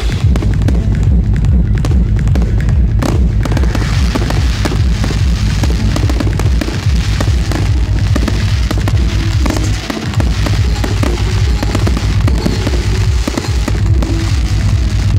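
Aerial firework shells bursting with sharp bangs and crackling, over loud electronic dance music with a steady bass beat. The crackling thickens from about four seconds in.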